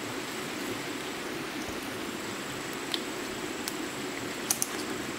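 Steady rush of flowing water, with a few sharp clicks about three and four and a half seconds in and a thin steady high whine in the background.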